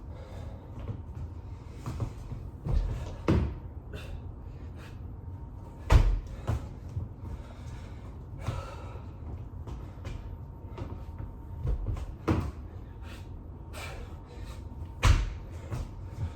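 Repeated thuds and knocks of a person doing burpees on the floor, landing from the jump and dropping into push-ups, a heavy impact every few seconds with lighter knocks between; the loudest come about six seconds in and near the end.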